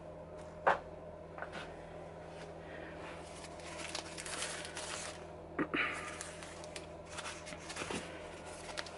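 Crumpled newspaper bundles bound with masking tape being handled and set in place, rustling and crinkling. A sharp knock comes under a second in, and a couple of taps come about halfway through.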